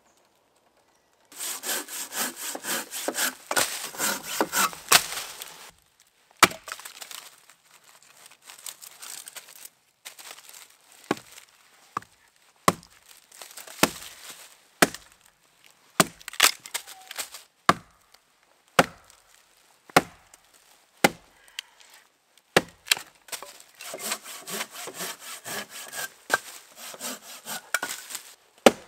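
Dry wood being broken and split by hand. After a silent first second come bursts of snapping and splintering, with separate sharp knocks about a second apart in the middle.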